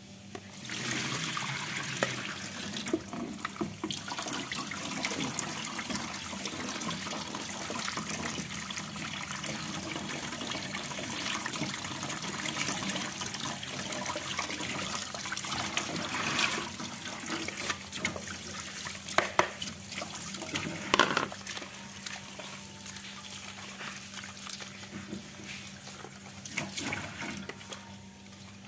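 Water running and splashing into a stainless-steel kitchen sink as mushrooms are rinsed by hand in a plastic colander and bowl. A few sharp knocks come about two-thirds of the way through.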